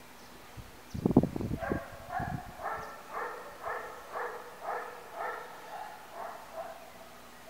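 An animal calling over and over, short pitched calls at about two a second, after a brief burst of low thumps about a second in.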